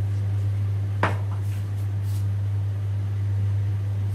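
A jar set down on a kitchen counter with one sharp knock about a second in, followed by a few faint clinks, over a steady low hum.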